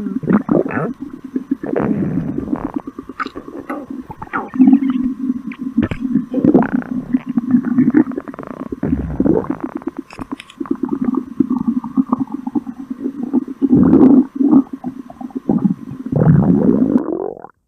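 Stomach growling: a long run of gurgling rumbles over a low, pitched growl that swells and fades again and again, then stops abruptly near the end.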